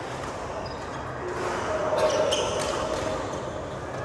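Badminton play on an indoor court: short squeaks of shoes on the court floor and a few sharp hits, loudest about two seconds in, over a steady background hiss.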